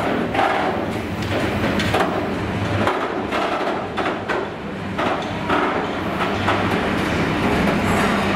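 Freight train of loaded steel-coil wagons rolling past: a steady rumble of wheels on rail with irregular knocks and clanks from the wagons.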